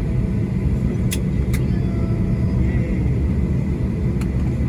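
Steady low rumble inside a Boeing 737-800 cabin as the jet taxis after landing, its CFM56 engines at idle. Three short sharp clicks cut through: about a second in, half a second later, and near the end.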